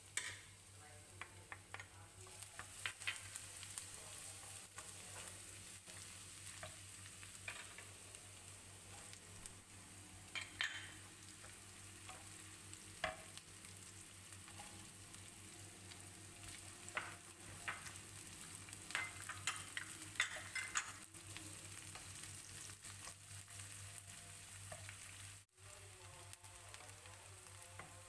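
Chopped garlic, shallots and onion sizzling in hot oil in a ceramic nonstick frying pan. A wooden spatula stirs them, scraping and tapping against the pan in scattered clicks.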